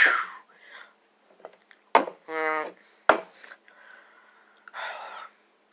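Two sharp knocks on a wooden tabletop about a second apart, with a short hummed 'mm' from a person between them and a soft breath near the end.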